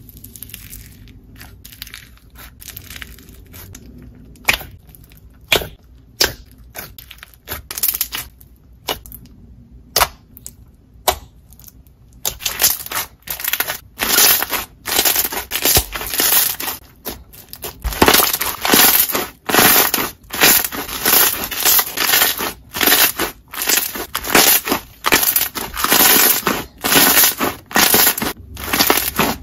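Textured slime being pressed and kneaded by hand. At first it gives sparse sharp pops and clicks, then about twelve seconds in it changes to dense, rapid crunching and crackling with each press.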